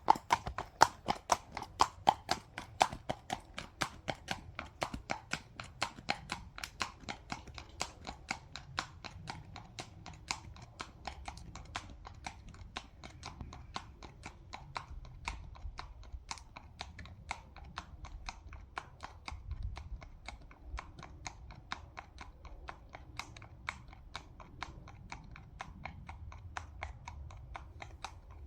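A horse's hooves clip-clopping at a walk on a road surface, several even strikes a second. They are loudest at the start and fade steadily as the horse moves away.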